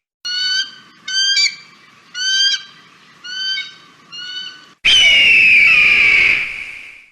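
Kite (chil) calling: five short, shrill calls about a second apart, then one loud, long call that falls slightly in pitch over about two seconds.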